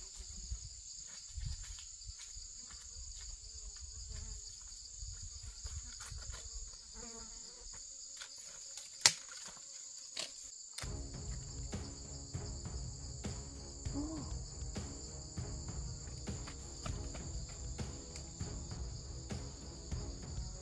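Steady, high-pitched chorus of insects buzzing, with rustling and handling noise underneath that grows louder about eleven seconds in. One sharp click about nine seconds in.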